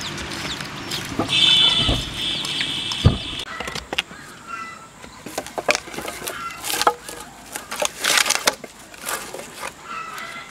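Dry firewood sticks knocking and cracking as they are handled at a clay stove, a string of sharp clicks that is busiest about eight seconds in. Earlier there is a high-pitched call lasting about two seconds, starting about a second in, and a single low thump.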